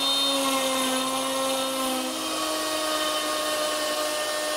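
Plunge router with a straight cutting bit running under load, routing a slot in a melamine panel. It makes a steady high whine that steps slightly up in pitch about two seconds in.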